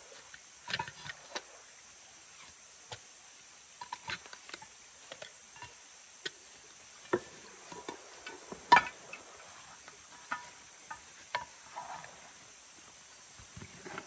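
Camping gear being handled and packed into a backpack: scattered knocks, clinks and rustles, the loudest about nine seconds in. A steady high insect hum runs underneath.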